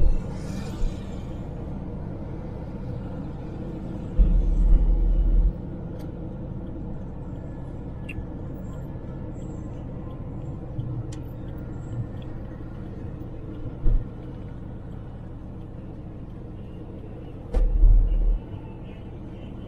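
Suzuki Jimny driving: steady engine and road rumble. Two heavier low rumbles, each about a second long, come around four seconds in and again near the end.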